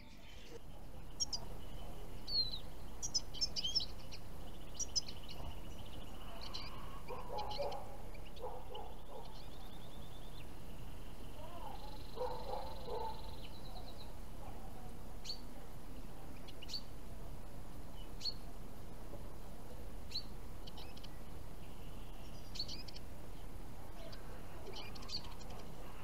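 Small finches chirping: short, high calls scattered irregularly, with a few lower calls about a third and halfway in.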